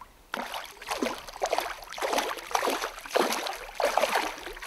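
Hooked rainbow trout splashing and thrashing at the water's surface, a run of loud irregular splashes.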